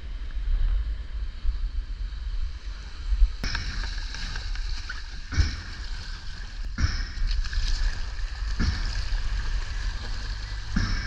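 Ocean surf and wind rumbling on an action-camera microphone, with several sharp knocks or splashes from about three seconds in.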